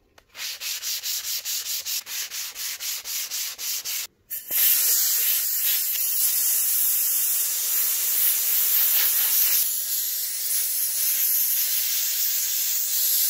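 Sanding sponge rubbed back and forth over a laser-cut board, about four strokes a second. Just over four seconds in, a compressed-air blow gun starts a steady loud hiss, blowing the sanding dust off the engraved surface.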